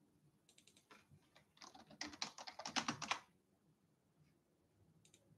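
Rapid typing on a computer keyboard: a quick run of keystrokes from about half a second in to about three seconds in, then a few single key presses.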